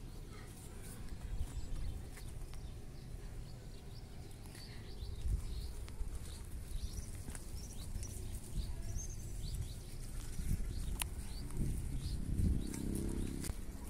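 Outdoor cattle-pen ambience: small birds chirping in short high calls throughout, over a low rumble on the phone's microphone. Near the end a cow gives one short, low moo.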